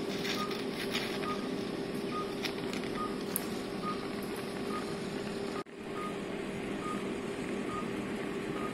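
Operating-theatre patient monitor beeping with the pulse, a short high beep a little more often than once a second, over the steady hum of theatre equipment.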